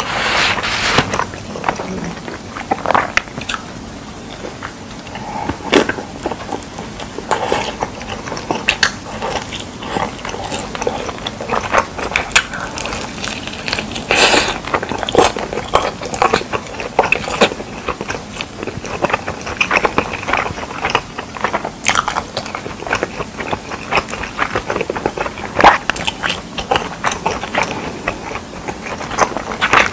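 A person biting and chewing sauce-covered fried pork ribs, tearing meat off the bone, with many short, irregular crunches and mouth clicks.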